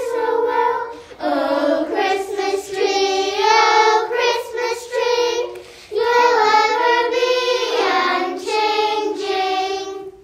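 Children's voices singing a melody with held, gliding notes and little or no accompaniment; the singing stops abruptly near the end.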